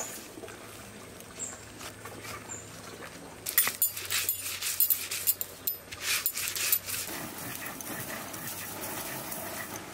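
Dried prawns being crushed and ground with a hand-held stone on a flat stone grinding slab: a run of sharp scraping, crunching strokes about a third of the way in, then steadier rubbing.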